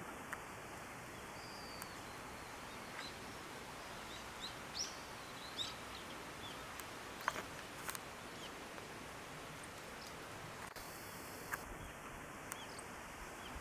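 Outdoor background noise with faint, scattered bird chirps: a few short, high calls, most of them in the first half. A couple of sharp clicks come near the middle.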